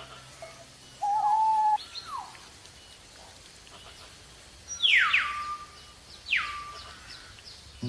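Bird calls: a held whistled note about a second in, then sharply falling calls that level off into a short steady tone, two close together around five seconds and one more near six and a half seconds.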